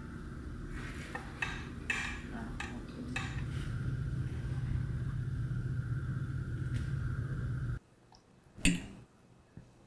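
Kitchen utensils and dishes clinking a handful of times over a steady low hum. The hum stops abruptly about eight seconds in, and a single sharp knock follows.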